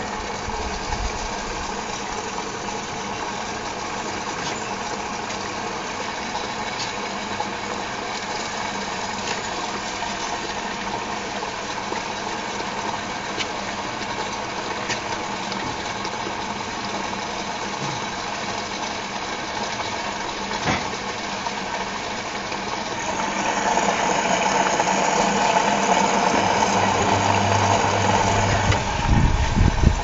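Whirlpool AWG 371 front-loading washing machine in its wash phase: the motor turns the drum while wet, sudsy bedding tumbles and water sloshes inside. The sound grows louder about three-quarters of the way through, and a few low knocks come near the end.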